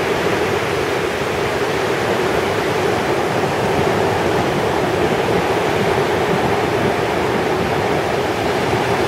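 Gulf of Mexico surf washing onto a sandy beach: a steady, even rush of water noise.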